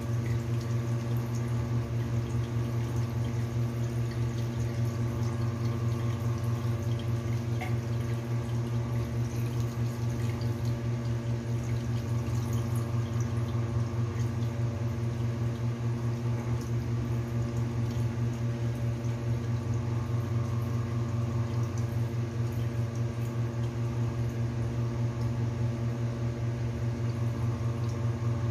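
Glutinous rice being washed by hand in water in a stainless steel bowl, soft swishing and dripping, under a loud steady low hum with even overtones.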